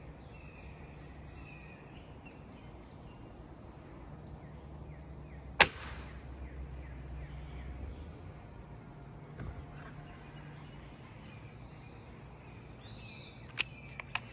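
A single sharp pellet rifle shot about five and a half seconds in. Behind it, steady bird chirping repeats about twice a second, and two smaller clicks come near the end.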